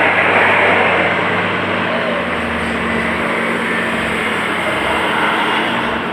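Heavy diesel earthmoving machinery running steadily under load, a loud even engine noise over a low steady hum.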